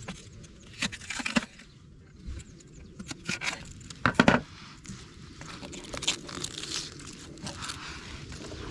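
Irregular handling noises: crinkling and scraping with a few sharp knocks, the loudest a little over four seconds in.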